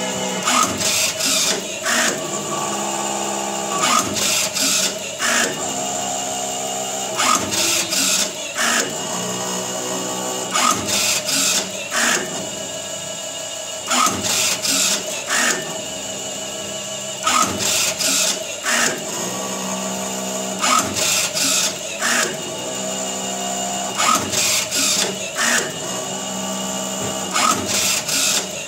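Automatic round cotton wick making machine running: a steady motor whine with shifting stepped tones, broken by bursts of sharp mechanical clacks that repeat regularly every second and a half to two seconds as the machine cycles.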